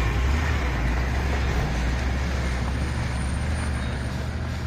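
Heavy truck's diesel engine running steadily with a broad rush of road and tyre noise, growing gradually a little quieter.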